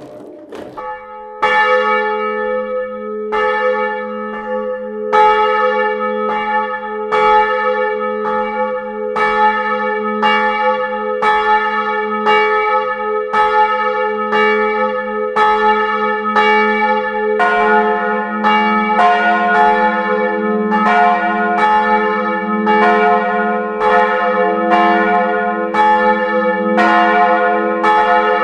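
Two bronze church bells ringing in full peal, heard up in the tower. The small as' bell (cast 1985) starts striking about a second and a half in, roughly one stroke every two seconds. At about seventeen seconds the large, deeper f' bell (cast 1899, Ohlsson of Lübeck) joins, its strokes falling between the first bell's.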